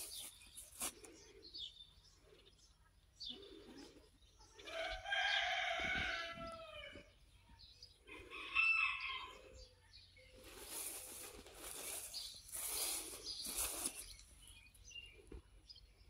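A rooster crows once about five seconds in, a call lasting about two seconds, followed by a shorter call a couple of seconds later. Swishing, rustling noises come near the end.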